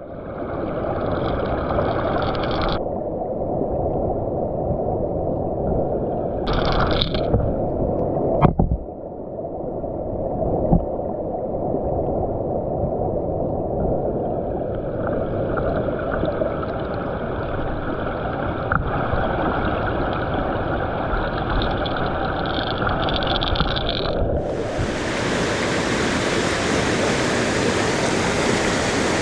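Mountain stream water rushing steadily, with two short knocks about eight and eleven seconds in. The rush turns brighter and hissier about 25 seconds in.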